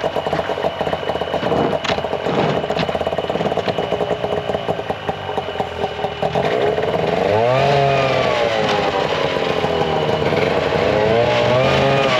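Vehicle engine running with a rapid pulsing note, then revving up about seven seconds in, its pitch rising and falling and climbing again near the end. Two sharp knocks sound about two and three seconds in.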